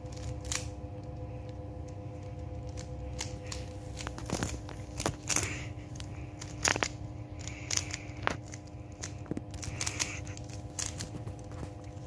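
Plastic Rubik's cube being turned layer by layer while the second layer is solved: irregular clicks and clacks, some a few in quick succession, over a steady hum.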